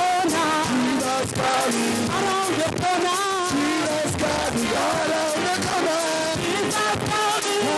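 Church praise-and-worship song: voices singing a wavering melody over instrumental accompaniment, unbroken.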